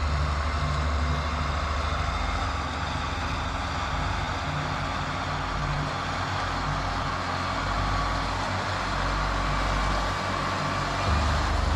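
Heavy diesel machinery running steadily, a deep rumble with a constant mechanical wash above it.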